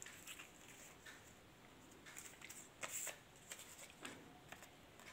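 Faint, scattered rustles and flicks of paper banknotes being handled, with a few short rustles clearest about three seconds in.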